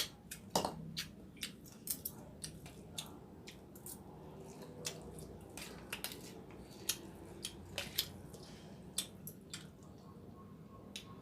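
Eating sounds over a bowl of pork noodle soup: irregular sharp clicks and wet smacks of chewing, with the odd utensil tap.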